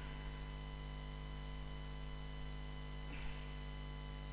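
Steady electrical mains hum with a buzzy stack of overtones over faint room hiss, with a faint short hiss about three seconds in.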